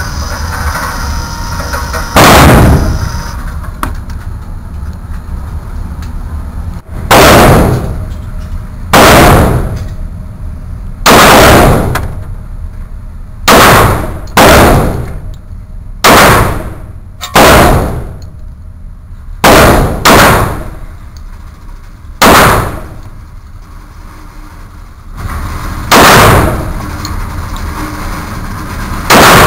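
Glock 31 pistol (.357 SIG) fired about thirteen times, single shots spaced from about half a second to five seconds apart. Each shot is very loud and followed by a short echo off the concrete range lane.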